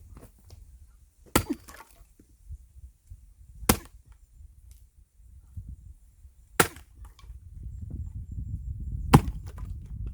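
An axe splitting firewood logs: four sharp chopping strikes about two and a half seconds apart, each followed by a brief crack of wood splitting.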